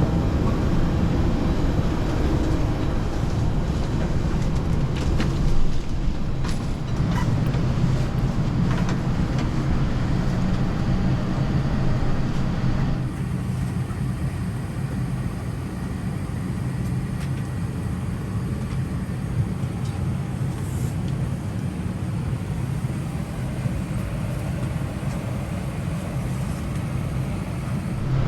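Steady low hum of an airliner's ventilation and ground air while boarding, with a few clicks and knocks in the first half. The higher hiss drops away suddenly about halfway through.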